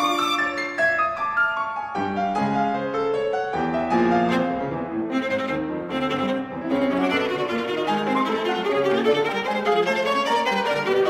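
Viola and piano playing a 20th-century classical chamber sonata: the viola's bowed melody is sustained over piano notes, with a few sharper piano attacks around the middle.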